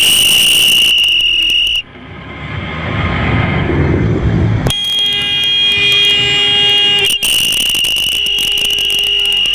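A loud, steady high-pitched alarm-like tone that cuts off about two seconds in and comes back about five seconds in. In the gap, a jeep's engine and road noise grows louder.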